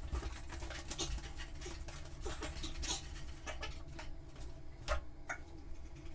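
A dog moving about on a hard floor, with irregular clicks and scuffs from its claws and feet as it jumps up and settles.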